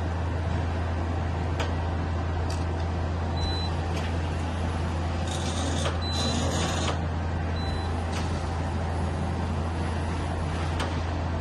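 Okuma LB3000EX CNC lathe running with a steady low hum, with a few sharp clicks, three short high beeps and a burst of hiss about halfway through.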